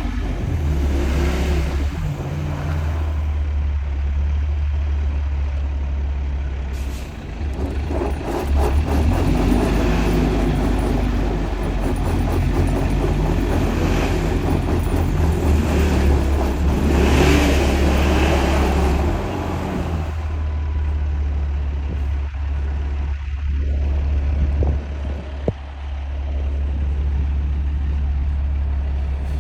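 Heavy trucks' diesel engines running steadily under load, with several short bursts of hiss like air brakes.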